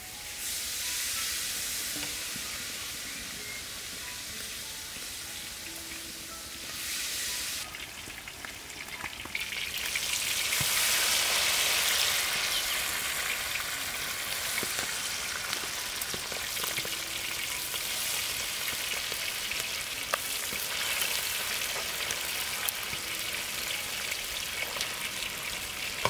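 Whole quail deep-frying in a large wok of hot oil: a dense, steady sizzle that grows louder about ten seconds in.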